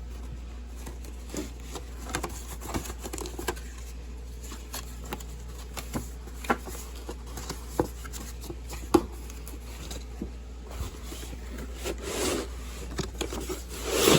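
Irregular light clicks, taps and scrapes of objects and tools being handled, over a steady low hum, with a louder rustling scrape near the end.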